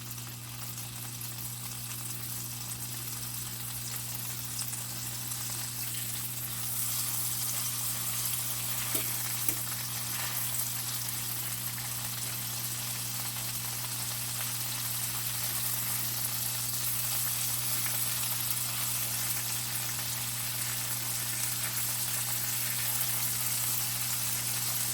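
Bone-in ribeye stood on its edge in butter in a hot cast iron skillet, its side and fat ring searing with a steady sizzle that grows a little louder after about seven seconds.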